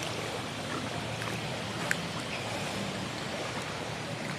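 Steady rush of fast-flowing floodwater in a swollen bayou, with one faint click about two seconds in.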